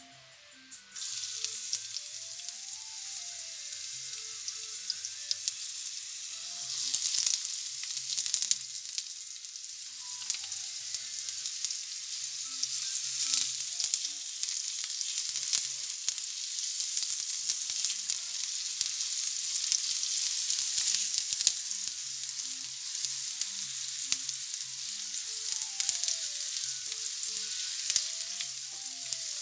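Chopped onion and garlic sizzling in a hot ceramic frying pan. The sizzle starts suddenly about a second in as they go into the pan, with clicks and scrapes from a spatula stirring them.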